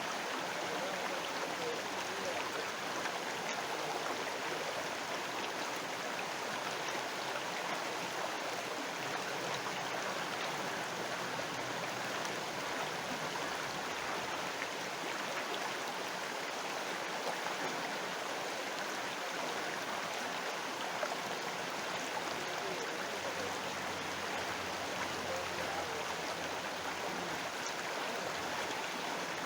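River water flowing, a steady even rushing with no breaks or changes.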